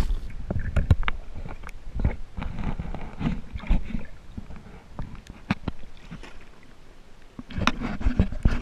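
Underwater sound of a diver moving through shallow water: scattered muffled knocks and clicks over a low rumble, then a denser burst of splashing near the end as the camera breaks the surface.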